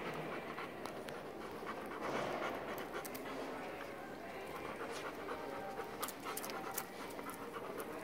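A dog panting steadily, with scattered light clicks from about three seconds in.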